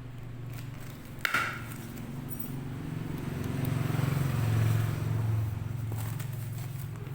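An engine running steadily with a low hum that swells louder past the middle and eases off again. A sharp click comes a little over a second in.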